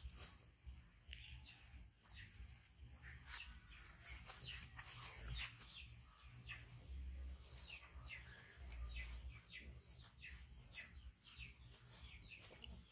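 Faint chirping of small birds: many short, falling chirps in quick succession.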